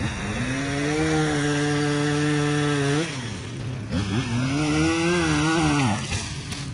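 Two-stroke Echo saw engine revved to full throttle twice, each time for about two to three seconds, falling back between bursts.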